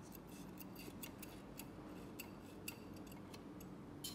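Faint, irregular small metallic clicks and ticks of steel tweezers against steel wire and the model's aluminium chassis as the wire is fed into a spring cable sheath.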